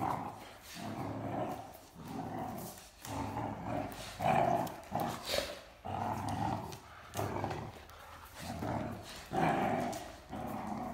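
Great Danes, a grown dog and a puppy, growling in play while tugging at a rope toy: rough growls in repeated bursts about once a second.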